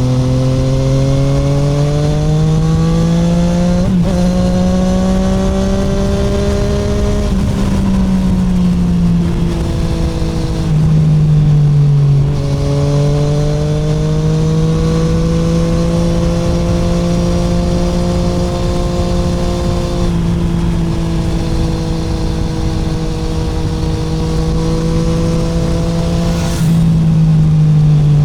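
Onboard sound of a 2017 Triumph Street Triple 765R's 765 cc inline-three engine through an SC Project SC1-R titanium exhaust with the dB killer removed, running at steady road speed. The pitch climbs for several seconds, sags around eight seconds in, then climbs slowly again, with a louder spell around eleven seconds and another near the end.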